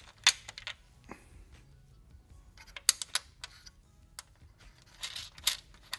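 Small grille-mounting bolts and lock nuts being started by hand into a plastic grille shell with a metal mesh insert. Light clicks and scrapes of metal hardware on plastic come in a few quick clusters: just after the start, about three seconds in, and about five seconds in.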